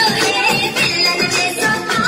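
A song playing: music with a singing voice over it.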